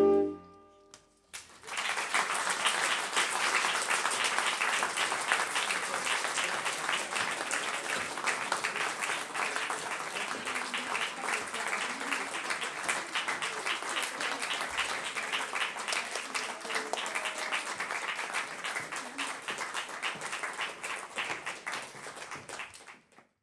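The final chord of a saxophone quartet cuts off, and after a short pause an audience applauds steadily for about twenty seconds, slowly dying away near the end.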